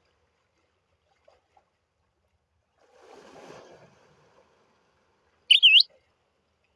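A soft wash of sea water swells and fades about three seconds in. Near the end comes a short, loud, high chirp that bends up and down in pitch.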